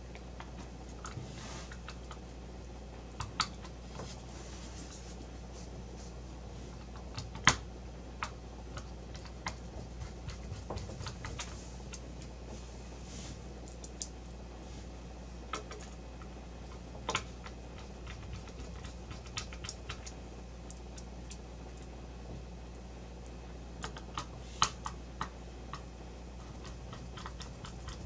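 Small screwdriver and screws making scattered light clicks and taps as a graphics card's backplate screws are set and turned. The sharpest click comes about seven seconds in, with another cluster of clicks near the end.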